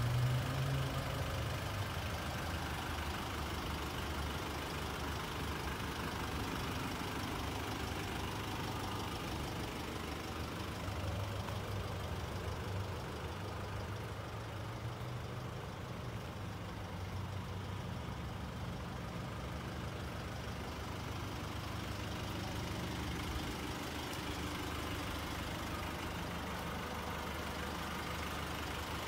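Nissan Pathfinder engine idling steadily, a low even rumble.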